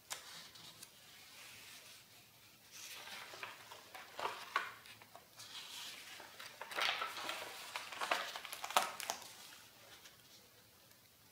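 Pages of a spiral-bound sketchbook being turned by hand: paper rustling and flapping, with a few sharp snaps as the sheets flip over, busiest in the middle.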